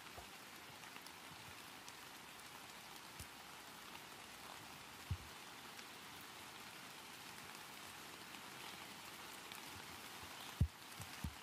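A steady, faint hiss like light rain, with a few soft, dull thumps about five seconds in and twice near the end.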